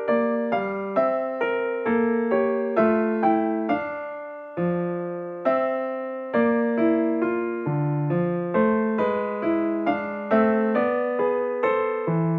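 Background piano music: a slow melody of single notes, each struck and fading, about two a second, with a longer held note a little after four seconds in.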